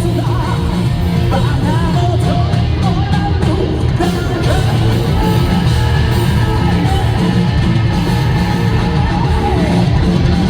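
Live hard-rock band performing: a male lead singer belting over distorted electric guitar, bass and drums.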